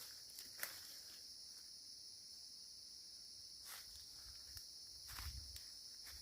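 Steady high-pitched buzz of forest insects, with a few footsteps on leaf litter: one just after the start, one near four seconds and a heavier one a little after five.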